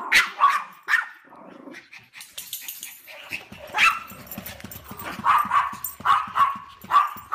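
A small dog barking at a plush toy lion in short, sharp, high yaps: a few early on, then many in quick succession in the second half. A low rumble runs under the later barks.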